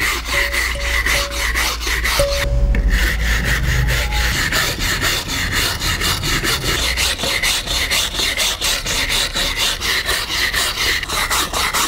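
Stiff hand brush scrubbing along a weathered old oak board in quick, even back-and-forth strokes, a steady dry scraping rasp.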